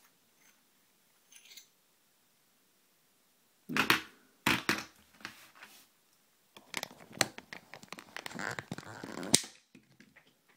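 Sharp clicks and a rattling clatter of small metal parts from a gutted euro cylinder lock and its pins being handled, with a loud click about four seconds in and a denser run of clicks and rattling that ends in a sharp click near the end.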